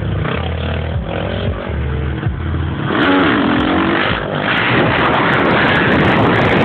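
Honda CRF450 single-cylinder four-stroke dirt bikes running and revving. About three seconds in, a louder rush of engine noise with gliding pitch comes in and stays.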